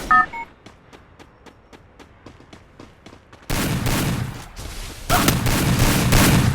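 Video game gunfire: a short electronic beep, then faint regular ticks, then sustained rapid automatic fire in two long stretches from about halfway through.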